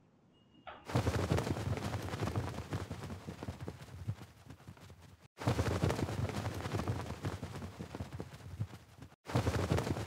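Sound effect of many wings flapping in a rapid, dense flutter. It starts about a second in and breaks off abruptly twice before resuming.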